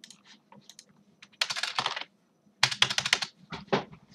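Computer keyboard typing: scattered key clicks and two quick runs of keystrokes in the middle.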